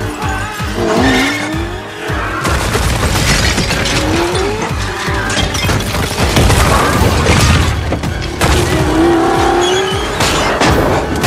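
Film action sound mix: a Lykan HyperSport supercar's engine revs up again and again, with tyres skidding and loud crashes and shattering as the car smashes through statues and debris, all under dramatic score music.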